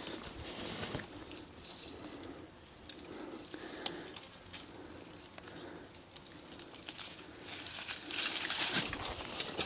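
Rustling of brush and dry leaves with scattered light clicks and scrapes as a long snake-handling pole is worked among rocks and branches. The rustling grows louder near the end.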